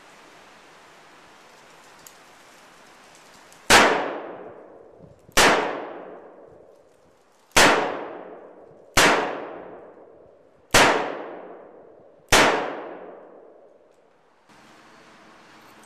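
Smith & Wesson Model 10 .38 Special revolver fired six times, the first shot about four seconds in and then one every one and a half to two seconds, emptying its six-shot cylinder. Each shot is a sharp crack that rings out and dies away over about a second.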